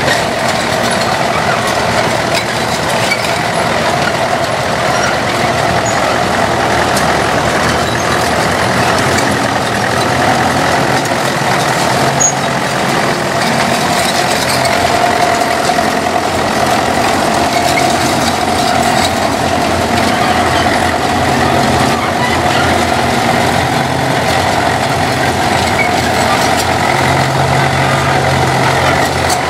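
Diesel engines of International BTD6 and BTD 640 crawler tractors running steadily, one crawler moving under power across the yard.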